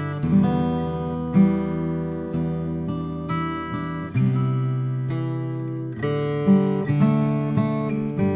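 Solo acoustic guitar playing slow chords, each strummed gently and left to ring before the next.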